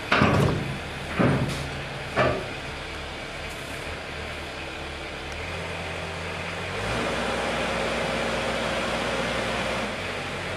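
Combilift four-way forklift's engine running, with three loud metal clanks in the first two seconds as the steel stillage knocks against the forks while it is picked up. About seven seconds in, the engine comes up to a steady higher note while the load is lifted, and it drops back just before the end.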